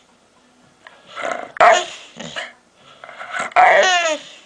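A dog making drawn-out, growl-like vocal noises in two bouts, the second sliding down in pitch toward its end.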